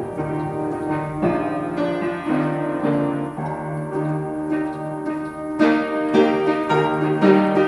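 Piano music playing.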